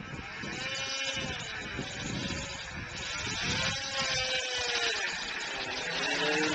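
1997 Yamaha V-Max XTC 600 snowmobile's two-stroke triple with an aftermarket Bender exhaust can, revving up and falling back about four times as the throttle is worked. It grows louder toward the end.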